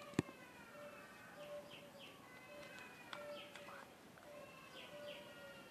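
Faint background birdsong, thin chirps and gliding whistles repeating throughout, with one sharp click just after the start.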